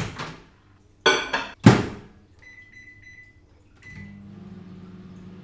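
A microwave oven being loaded and started. There is a clatter and a loud thud as the door shuts, then a long keypad beep and a short one. The oven then starts running with a steady low hum.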